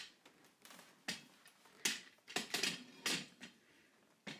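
Irregular clicks and soft knocks, about six in four seconds, from a person walking across a hardwood floor while carrying the recording phone: footsteps and handling noise on the phone.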